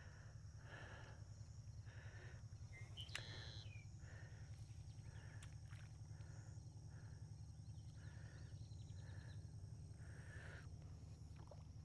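Near silence with a faint steady low hum. A soft animal call repeats about every two-thirds of a second, and a short chirp comes about three seconds in.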